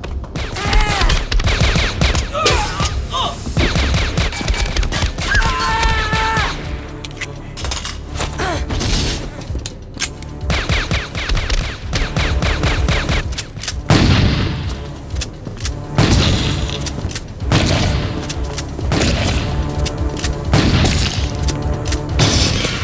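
Film gunfight: a long run of gunshots in quick succession, among them heavy shotgun blasts, with a film score underneath.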